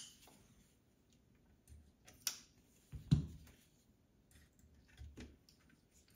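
A few faint clicks and knocks as a folding multi-tool knife is opened and handled over a router: a sharp click a little over two seconds in, a dull knock about a second later, and a softer knock near five seconds.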